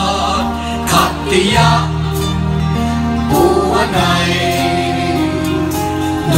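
Live band music: several drum kits playing, with cymbal crashes over sustained chords and a bass line that changes every second or two, and voices singing held notes.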